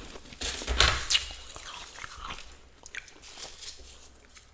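Thick freezer frost crunching and crackling around a freezer basket. A loud crunch comes about half a second to a second in, then lighter crackles trail off.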